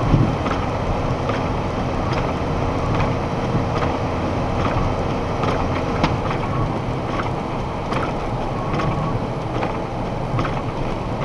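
Box truck cruising at about 60 mph, heard from inside the cab: a steady drone of engine and road noise, with faint ticks about every half second.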